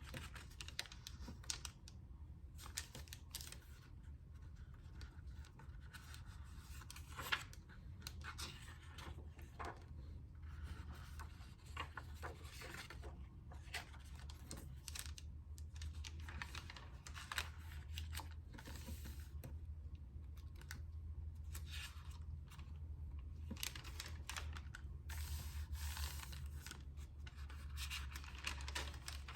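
Thin onion-skin paper journal pages rustling and crinkling as they are turned and handled, in irregular crackles, over a faint low hum.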